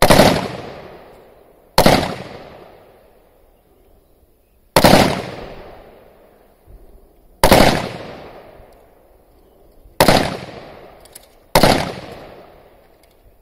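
Beryl 5.56 mm assault rifle fired in single shots: six shots, unevenly spaced one and a half to three seconds apart. Each crack trails off in a long echo.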